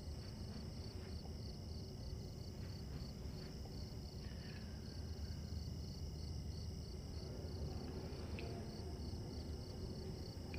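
Cricket chirping: an even, high-pitched pulse repeating a few times a second over a low background hum.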